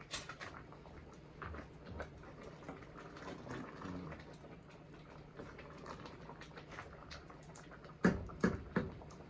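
Utensils and dishes being handled in a kitchen: scattered light clicks and taps, then three sharp knocks about eight seconds in.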